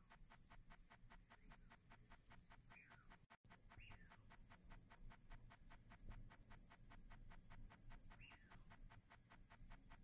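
Faint insect chorus: a steady high-pitched buzz with a regular pulsing trill just below it. Three short falling calls come through, and the sound cuts out for an instant just over three seconds in.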